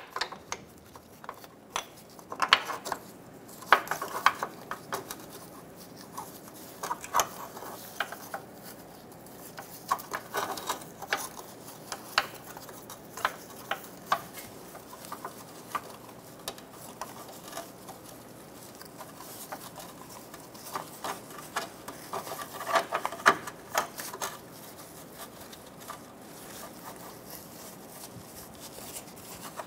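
Gloved hands removing and fitting a car's lower transmission mount and its bolts: irregular light metal clicks and knocks with rubbing, a louder cluster of knocks about three-quarters of the way through.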